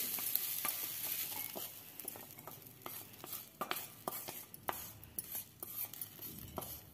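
A flat wooden spatula scrapes and knocks against the inside of a stainless steel kadai, pushing sautéed onions out in irregular strokes. A faint sizzle from the hot pan fades away over the first second or two.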